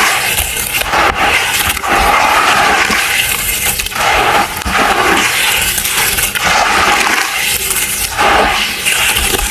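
Red sand being crushed and crumbled, giving a loud gritty crunching and scraping that comes in repeated surges with short breaks between them.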